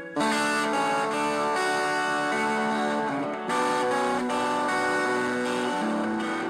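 Electric guitar played through a Minuano overdrive pedal, a few chords struck and left to ring.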